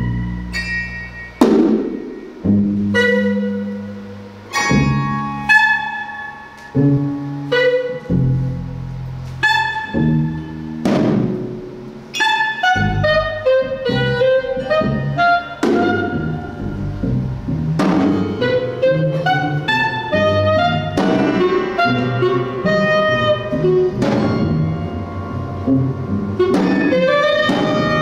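Live free-jazz quartet playing: clarinet with piano, double bass and percussion. Sharp struck notes ring out and decay about once a second at first, and the playing becomes denser and more continuous about halfway through.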